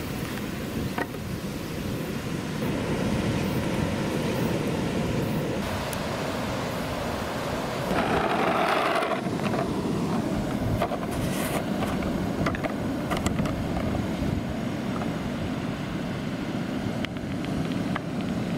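Small plastic balls rolling along rough pavement, a steady gritty rumble with a few light clicks, louder for a moment near the middle.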